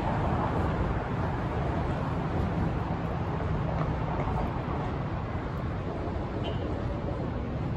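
Downtown street traffic: a steady wash of passing cars and engines with a low rumble underneath.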